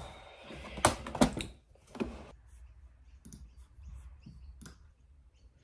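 Clicks and taps at a computer desk: two sharp knocks about a second in and another soon after, then scattered light ticks like keys and mouse buttons being pressed.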